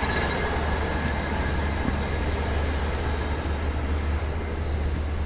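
Steady low hum with an even rushing hiss over it, unchanging throughout, with no distinct knocks or clanks.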